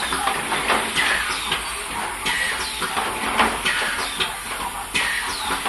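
Automatic bottle cap pad printing machine running, with the rhythmic clatter of its pneumatic cylinders and rotary indexing table. A short high note that dips in pitch comes about every 1.3 seconds, in time with the machine's cycle.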